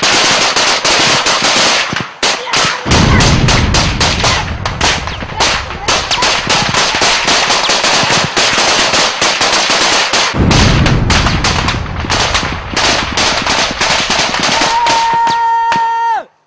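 Sustained automatic weapons fire, rapid overlapping shots with heavier low booms mixed in from about three seconds in. Near the end a steady high tone sounds for a second or so, then the sound cuts off abruptly.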